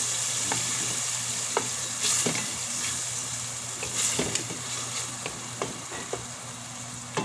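Canned corned beef with tomatoes and onion sizzling in a little oil in a stainless steel pan, stirred with a wooden spatula that knocks and scrapes the pan bottom in irregular clicks.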